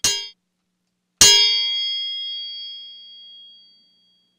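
Synthesised sword clangs played from a recorded knife-hit sample in a Pure Data patch. A short metallic clang comes right at the start. About a second later a single louder blade hit rings on with high tones and fades out over about two and a half seconds.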